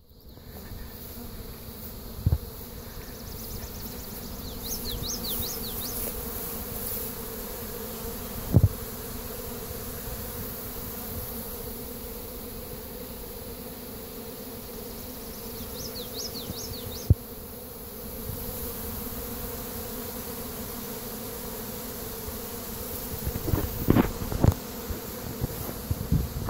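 Many honeybees flying in the air around the hives: a steady buzzing hum. Short high chirps come twice, and a few sharp knocks are heard, more of them near the end.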